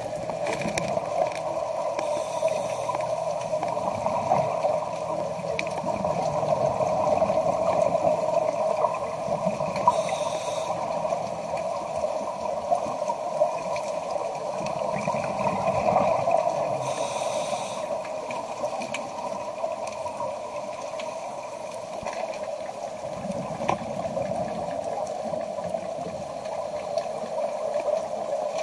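Underwater sound of scuba divers breathing through their regulators: exhaled bubbles gurgle and rumble in swells every few seconds over a steady hum, with a couple of short hisses of inhaled breaths.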